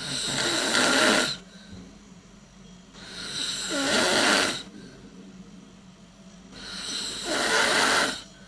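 A person snoring: three loud snores about three seconds apart, each building up over a second or so and then cutting off.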